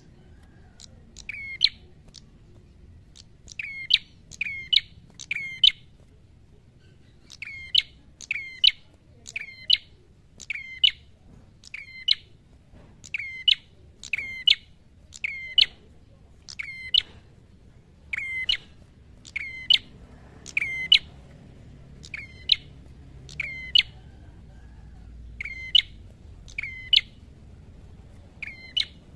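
Tailorbird (prenjak kepala merah) calling: loud, sharp notes that each slide quickly downward, repeated about once a second in runs broken by short pauses.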